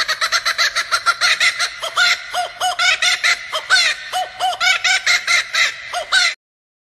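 A night bird's call: a fast run of harsh, chattering notes, about five or six a second, each note rising and falling in pitch. It stops abruptly a little after six seconds in. This is the eerie call heard in forests late at night.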